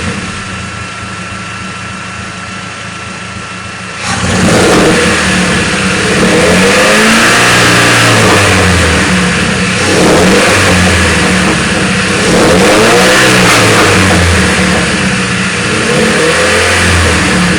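Car engine idling for about four seconds, then revved up and let back down several times, its pitch rising and falling. The engine is being checked for a misfire at low rpm.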